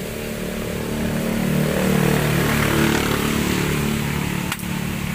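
A motor vehicle's engine passing by, swelling in the middle and easing off. About four and a half seconds in there is a single sharp shot from an airsoft pistol.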